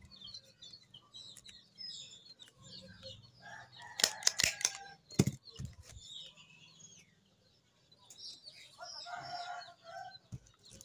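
A handheld stapler snaps through folded banana leaf: a quick cluster of sharp clicks about four seconds in and one more about a second later. Hens cluck in the background, with small birds chirping.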